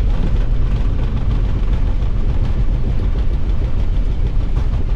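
Airbus airliner rolling out on the runway just after touchdown, heard from the cockpit: a steady, loud low rumble of wheels and engines.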